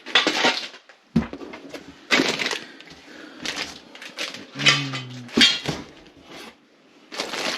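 Packing material rustling and crinkling as exhaust parts are unpacked, with a couple of sharp knocks of parts being handled.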